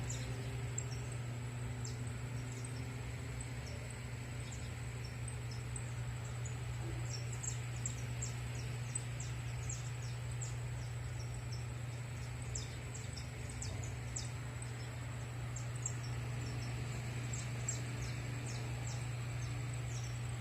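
Many caged songbirds, saffron finches among them, giving short, quick high chirps scattered throughout, over a steady low hum.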